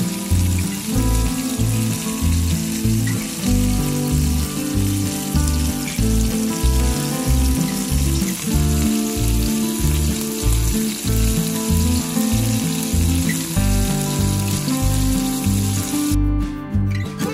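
Large flour-coated shrimp sizzling steadily as they pan-fry in hot oil, over background music with a steady beat. The sizzle cuts off abruptly about a second before the end.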